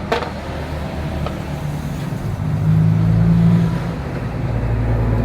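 A motor vehicle engine running steadily, swelling louder about two and a half seconds in, with a sharp click at the start and a fainter click about a second later.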